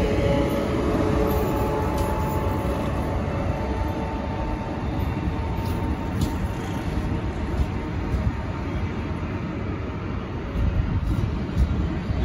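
Passenger coaches rolling past as the train pulls away, with a steady low rumble of wheels on rail and a few sharp clicks over rail joints late on. The ChS4T AC electric locomotive's steady whine fades over the first few seconds as it moves off.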